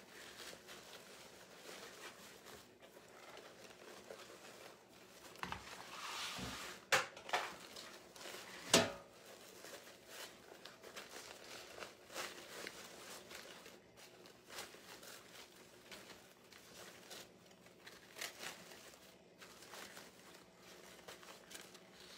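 Ribbon bow loops and deco mesh rustling and crinkling as they are pulled and fluffed by hand, with two sharper taps around the middle.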